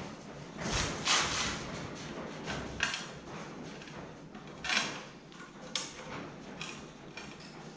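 Socket ratchet cranking the screw of a red scissor-type motorcycle lift to lower it, in a few short bursts of metallic ratcheting and scraping spaced a second or two apart.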